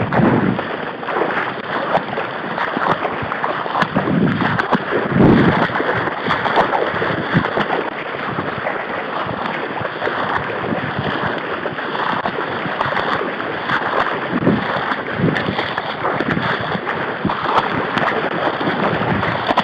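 Wading through a reedy marsh: water sloshing and splashing with each step while reeds and grass brush against the microphone, with a few heavier thuds near the start and about four to five seconds in.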